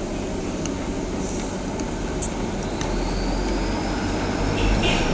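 Steady low rumbling background noise, with a few light clicks and a faint rising whistle in the second half.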